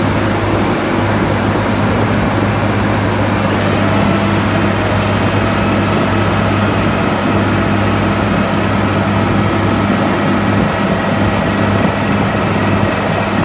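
Diamond core drilling rig's diesel power unit and hydraulics running steadily: a continuous low hum with a few faint whining tones above it.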